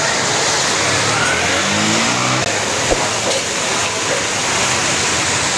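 Steady loud hiss of oil sizzling and flames flaring in several karahi pans of beef tikka, mixed with street noise. About two seconds in, an engine's rising note comes through briefly, and a single sharp click follows about a second later.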